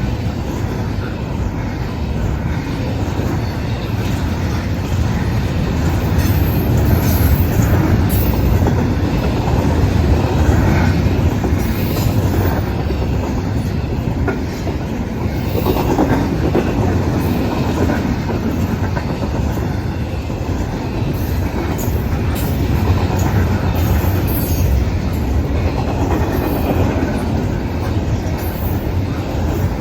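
Norfolk Southern intermodal freight train rolling steadily past: a continuous low rumble of the cars, with wheels clattering on the rails and occasional faint wheel squeals.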